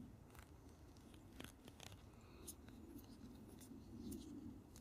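Faint scattered clicks and scratching of a split pine root being pulled and wrapped around a carved pine fish-hook shaft.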